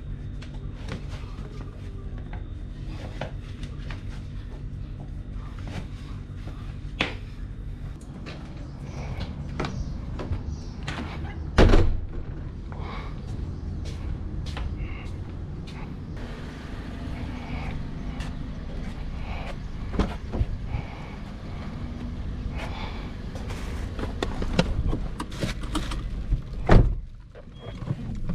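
Scattered knocks, scuffs and handling noises over a steady low hum, then a car door slamming shut near the end; the sound turns briefly muffled and quieter after the slam.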